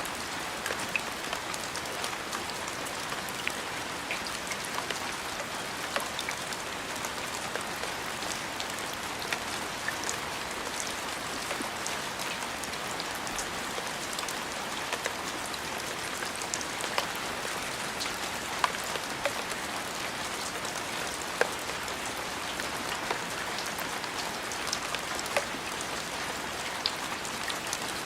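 Steady rain falling on a hard surface: an even hiss with many sharp individual drop ticks scattered through it.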